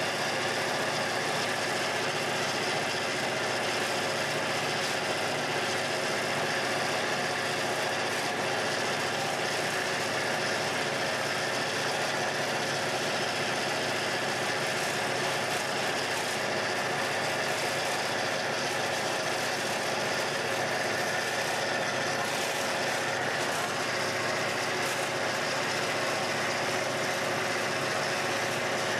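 MP15DC diesel locomotive's engine running steadily, heard from inside the cab as an even, unchanging drone.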